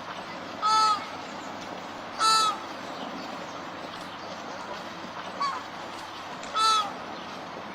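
Flamingo honking: three loud, short nasal calls a couple of seconds apart, with a fainter call just before the third, over a steady background hiss.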